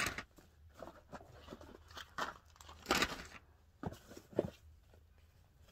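Product packaging being handled: crinkling and rustling of sachets and boxes, with a few sharp knocks and taps, the loudest right at the start and about three seconds in.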